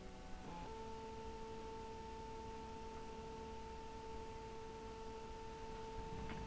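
Printer running as it prints and feeds the sheet out, its motor giving a steady, faint whine at one pitch. The pitch steps to a new note just after the start.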